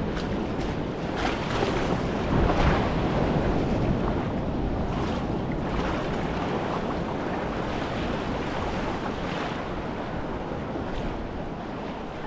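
Wind rumbling on the microphone over water lapping in shallow water, louder for a moment about two to three seconds in.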